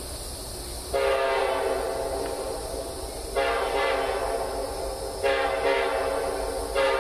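Distant CSX diesel freight locomotive's multi-chime air horn sounding a series of long blasts: three long ones starting about a second in, and a fourth beginning just before the end. A steady low rumble runs underneath.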